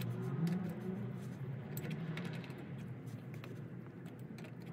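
Spanner clicking and clinking on steel bolts while they are turned to draw the ring off an epicyclic reduction hub, the clicks coming irregularly over a low steady hum.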